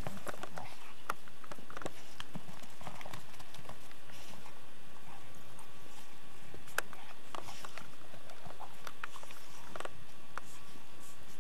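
A dog's paws crunching and scuffling through snow as it plays with a ball, with a few sharp clicks, over a steady hiss.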